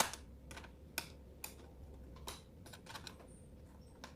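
Irregular small clicks and scrapes of a knife tip, used as a flat screwdriver, turning the screws that hold a visor ratchet plate on a KYT Vendetta 2 helmet's plastic shell. One sharp click comes at the start and a handful more follow roughly a second apart.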